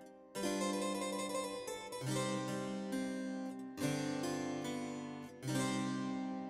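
Background instrumental music: a new chord struck about every second and a half, each fading away before the next.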